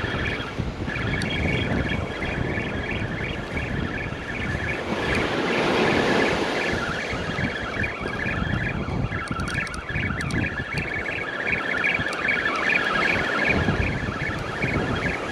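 Small surf waves breaking and washing up the sand, with wind buffeting the microphone; one wave swells louder about five to seven seconds in. Birds chirp steadily in a quick, high twitter.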